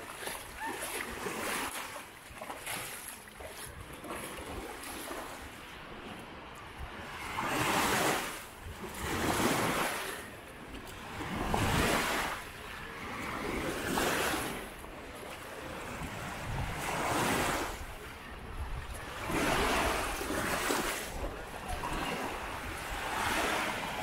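Waves breaking and washing up the shore, swelling and falling every two to three seconds, with some wind on the microphone.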